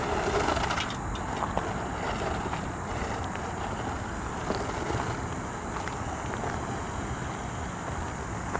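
Steady rush of wind on the microphone, a little louder in the first second, over the quiet running of a small electric RC truck driving on a road.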